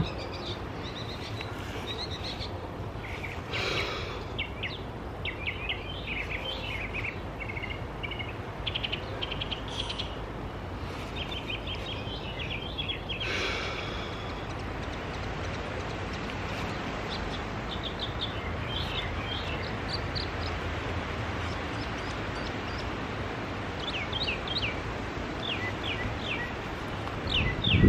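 Birds chirping and trilling in bursts over a steady outdoor background noise, with a few brief swishes.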